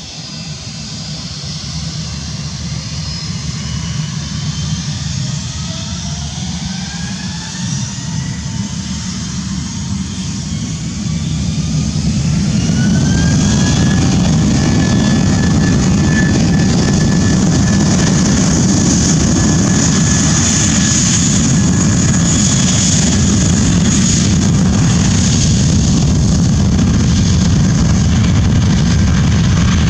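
Twin turbofan engines of an Airbus A320-family airliner spooling up for takeoff. Several whines rise in pitch for about the first twelve seconds, then the engines hold a steady, loud takeoff thrust with a constant whine over a deep rumble.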